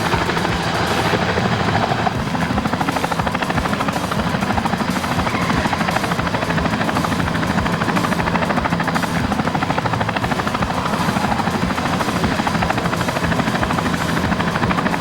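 Toy helicopter's rotor sound, a fast steady chopping.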